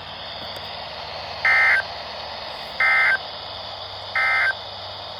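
Three short digital data bursts a little over a second apart from a NOAA Weather Radio broadcast: the EAS/SAME end-of-message (NNNN) code that closes the weekly test. A steady radio hiss lies under them.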